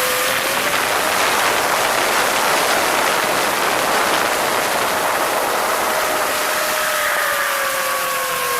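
FPV drone's motors and propellers whining over a steady rush of air. The whine fades under a louder rush for a few seconds in the middle, then returns and slowly falls in pitch.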